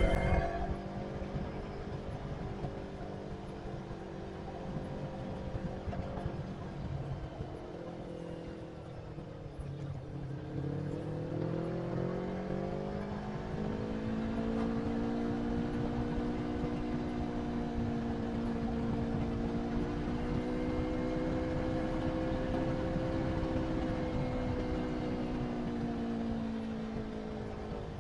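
Motorcycle engine running under way. Its pitch falls as it slows about eight to ten seconds in, rises as it speeds up again, then holds fairly steady, over a low rush of wind and road noise.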